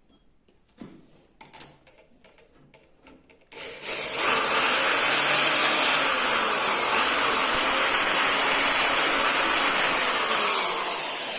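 A few light knocks, then a small electric power tool switches on about three and a half seconds in and runs with a steady high whine that sags in pitch twice, as if briefly loaded.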